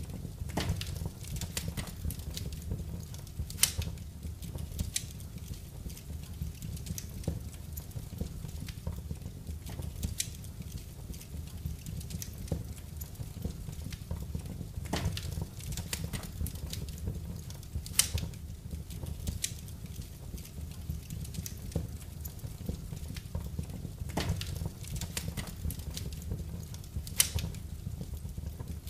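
Wood fire in a fireplace crackling, with sharp pops every few seconds and a few louder snaps over a steady low rumble of the burning logs.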